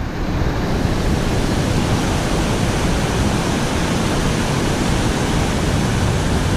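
River water rushing over a rocky rapid: a steady, even roar of white water.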